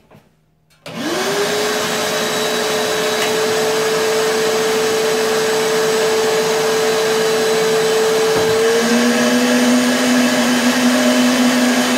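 Vacuum motor of a homemade vacuum former switching on about a second in and spinning up to a steady whine. Near the end its pitch steps up slightly and a lower hum joins it as the heated plastic sheet is drawn down over the molds on the perforated table.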